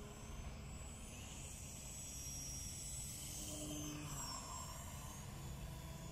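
A round-the-pole high-wing model plane's small motor whines faintly as it circles, its pitch bending as the plane sweeps past about halfway through, over a low rumble.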